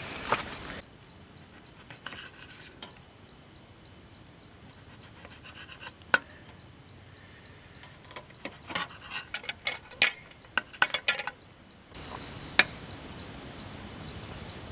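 Scattered sharp clicks and clinks of small hard objects being handled, the densest run of them about eight to eleven seconds in, over a steady high insect buzz.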